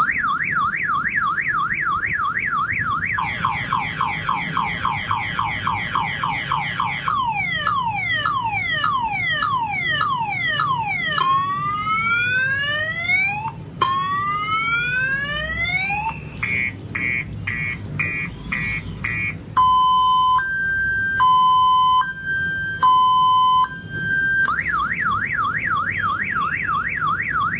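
Multi-tone electronic car alarm siren cycling through its patterns: a fast warble, rapid rising chirps, falling sweeps, slow rising whoops, a burst of quick beeps, and a slow two-tone hi-lo, then back to the warble near the end. A faint steady low hum runs underneath.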